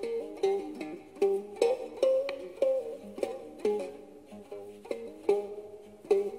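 Khse diev, the Khmer one-string stick zither with a gourd resonator, playing a melody of plucked notes, roughly two a second, some sliding in pitch as they ring.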